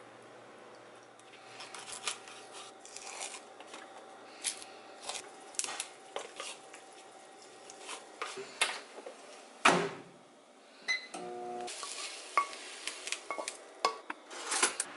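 Kitchen clatter while cooking breakfast: many small clinks and taps of utensils against a pan and a plate, with one louder knock about ten seconds in. Near the end comes a quick run of clicks as a pop-up toaster's lever is pushed down.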